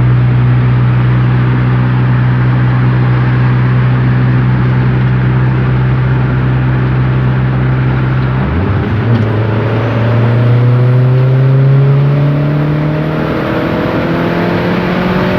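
Turbocharged Peugeot 206 1.6 16v engine pulling the car along at steady revs, then the revs drop abruptly at a gear change about eight and a half seconds in and climb steadily as it accelerates again, dropping once more at the end.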